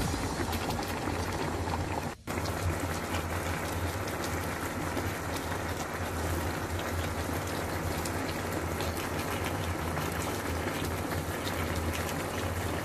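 Thick soy braising sauce bubbling and sizzling around a pork hock in a pan, a steady fizz of small pops over a low steady hum, with a brief break about two seconds in.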